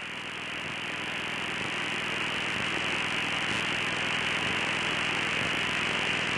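Helicopter noise heard through the crew's intercom between transmissions: a steady hiss with a faint low hum, slowly getting louder.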